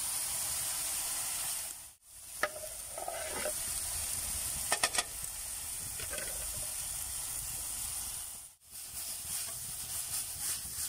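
Diced vegetables frying in oil in a skillet over wood embers, a steady sizzle with sauce just added. The sizzle drops out briefly twice, and a few sharp clicks come about five seconds in.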